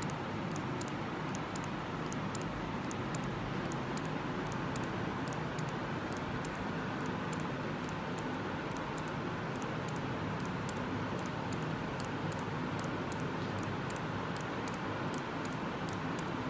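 Automatic syringe with a Socorex syringe counter being squeezed over and over: a regular run of sharp clicks, about two to three a second, from the trigger action and the counter's lever switch registering each dose. Steady background noise runs underneath.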